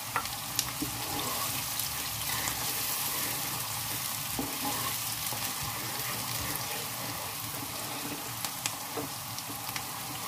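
Sliced onion and chopped hot pepper sizzling in hot oil in a frying pan, stirred with a wooden spoon, with a few knocks of the spoon against the pan and bowl.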